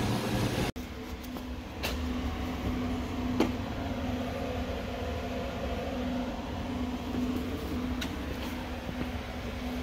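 Steady low machine hum with a droning tone, broken by a few light clicks and knocks about two seconds in, a second and a half later, and near the end.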